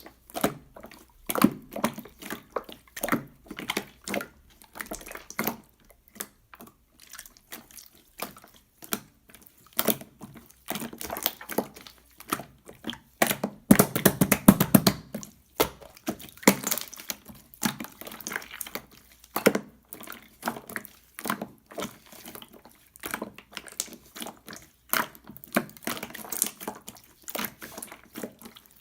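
Marbled slime being squished, poked and stretched by hand: irregular wet clicks and pops, with a longer, denser stretch of squishing about halfway through.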